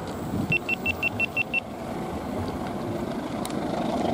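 Steady rumble of vehicles, with a quick run of seven short, high electronic beeps, about six a second, starting about half a second in.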